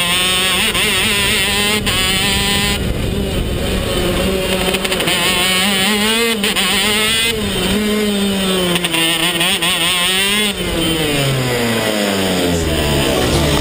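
KZ2 shifter kart's 125cc two-stroke single-cylinder engine running hard, its pitch rising and falling through the corners, then winding steadily down in the last few seconds as the kart slows.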